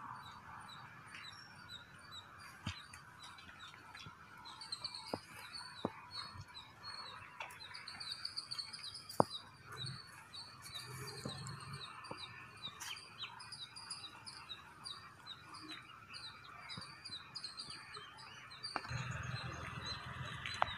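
Small birds chirping in quick runs of short, high notes, with a few sharp clicks scattered through, the loudest about nine seconds in.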